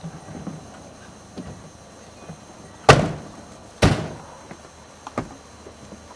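Car doors slamming shut twice, about a second apart, with a few lighter clicks and knocks around them.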